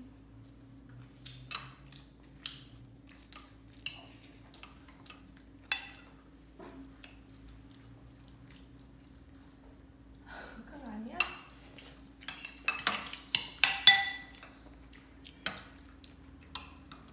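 Metal spoons clinking and scraping against bowls as children eat, in scattered sharp clicks that come thicker and louder in the second half.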